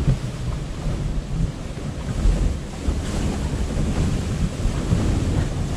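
Wind buffeting the microphone: a steady, low rushing noise with a heavy rumble.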